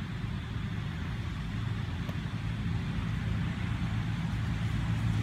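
A steady, low engine rumble, like a motor idling, that slowly grows a little louder.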